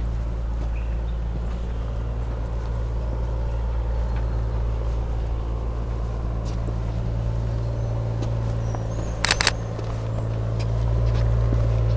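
Steady low hum of a running motor, growing a little louder near the end, with a quick run of three sharp clicks about nine seconds in.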